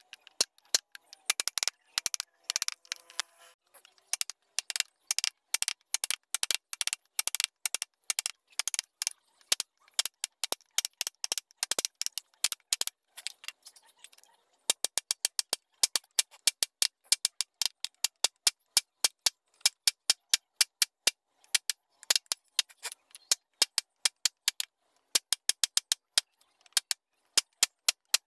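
A wood-carving chisel being struck with quick, light taps as it cuts into a block of wood: runs of sharp taps, several a second, broken by short pauses, growing crisper and more even about halfway through.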